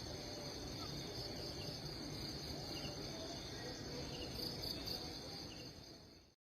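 Steady high-pitched insect trilling, such as crickets, over a low rumble of wind or handling noise, with a few faint short chirps; it fades and cuts off near the end.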